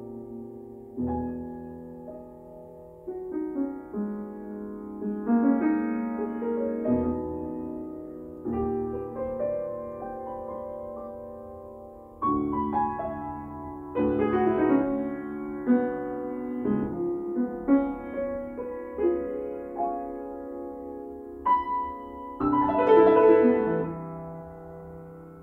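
Grand piano played solo: chords and melody with struck notes ringing and decaying, building to its loudest passage about 22 seconds in, then fading away near the end.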